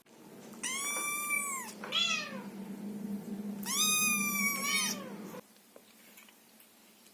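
Scottish Fold kitten meowing three times in a high voice: a long meow, a short falling one, then another long meow.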